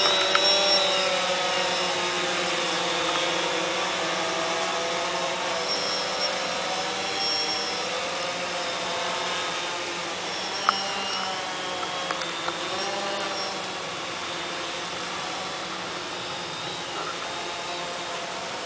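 Cheerson CX-20 quadcopter's electric motors and propellers whining, the pitch wavering up and down as the motors change speed. It hovers low, then climbs away, and the sound slowly fades.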